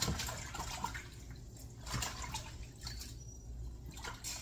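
Water splashing and dripping in a kitchen sink as fresh mint sprigs are rinsed, coming and going with a couple of brief pauses.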